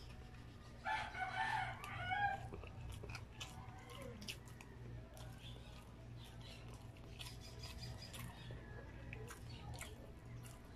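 A rooster crows once in the background about a second in, the loudest sound, over scattered light clicks of a plastic fork and spoon in paper takeout boxes and eating sounds, with a steady low hum underneath.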